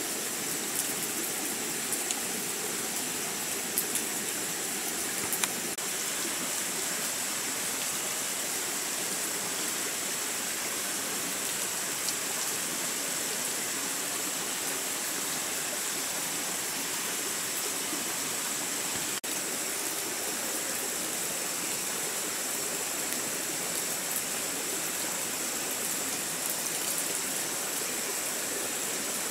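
Steady rushing water noise, with a thin high whine held throughout and a few faint clicks in the first few seconds.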